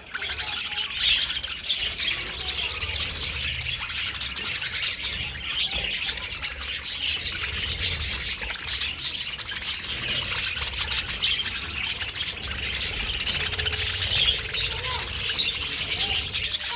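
A flock of budgerigars chattering, with dense, continuous chirping from many birds at once.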